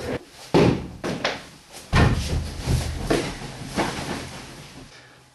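A few loud knocks and thuds, each with a short ringing tail; the heaviest, with a deep thump, comes about two seconds in.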